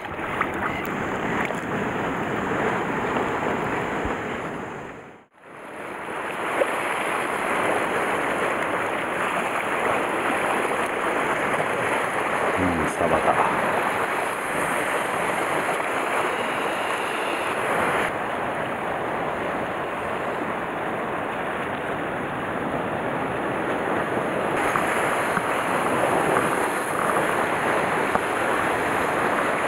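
Sea surf washing and breaking on a rocky shore, heard as a steady rushing, with wind buffeting the microphone. About five seconds in the sound fades out to silence for a moment, then the surf comes back.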